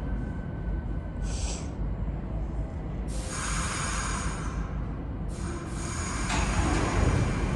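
R62A New York City subway train rumbling low in the station, with a short burst of air hissing about a second in and longer hissing from about three seconds on.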